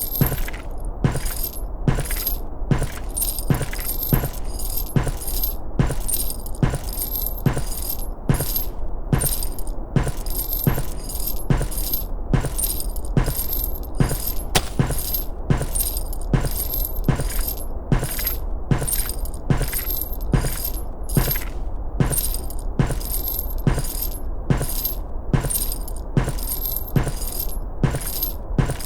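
Steady footsteps at walking pace, about three steps every two seconds, each step carrying a bright, high rattle, over a constant low rumble.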